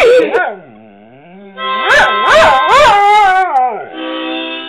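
Dog howling along to a harmonica: several long howls that swoop up and down in pitch, the loudest in the middle, then a steady held harmonica chord near the end.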